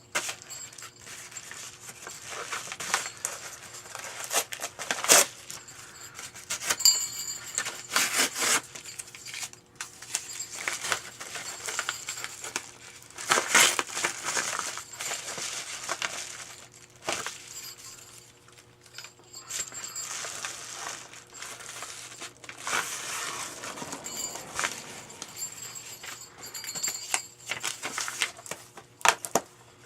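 A mailed package being opened by hand: packaging crinkling, rustling and tearing in irregular bursts, with a few sharp clicks and knocks, and longer tearing sounds about halfway through and again some eight seconds later.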